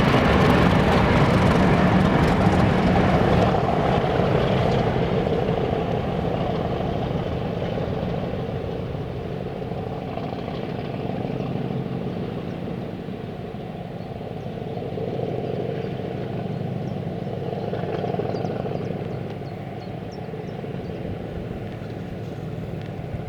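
Diesel locomotive engine working hard, loud at first, then fading steadily as it moves away.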